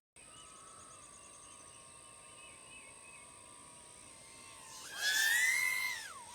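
BetaFPV Air65II 65 mm brushless tiny whoop's motors and props whining at a low hover. About five seconds in they throttle up to a much louder, higher-pitched whine for about a second, then drop back near the end.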